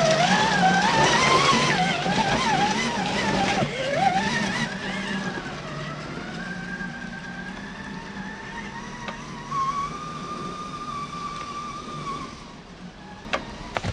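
Electric whine of a scale RC crawler's brushed motor and SCX10 gear transmission, its pitch rising and falling with the throttle, then steadier and fading as the truck drives away. A few sharp clicks near the end.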